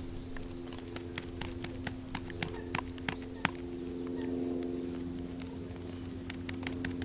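Quick light taps, a few to the second, as pellet mix is packed down tight inside a PVA solid bag, pausing in the middle and resuming near the end. A steady low hum runs underneath.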